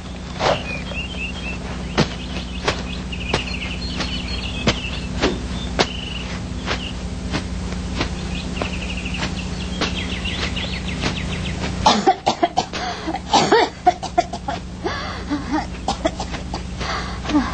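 Forest ambience of birds chirping in short, fast trills over a steady low hum, with scattered sharp clicks. About twelve seconds in comes a cluster of louder, rough short sounds.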